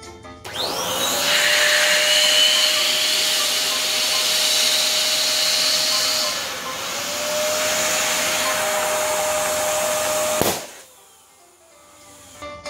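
Electric balloon pump whirring as it inflates a latex balloon, its pitch rising as it starts, with a brief dip about halfway, then a sharp pop as the overinflated balloon bursts about ten seconds in.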